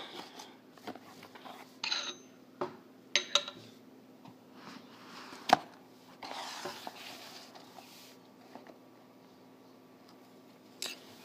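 Cardboard shipping boxes handled on a hard countertop: scattered knocks and taps, a sharp click about five seconds in, and a short rustling scrape just after.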